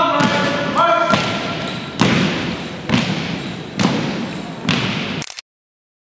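A drill commander's drawn-out call, held on one pitch, ends about a second in. Then a platoon of cadets marches in step on a hardwood gym floor, their feet striking together about once a second with an echo in the hall. The sound cuts out completely shortly before the end.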